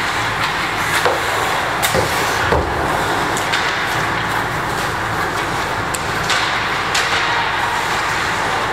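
Junior ice hockey in play: a steady hiss of skates scraping the ice, broken by a handful of sharp clacks of sticks, puck and boards, the loudest about two and a half seconds in.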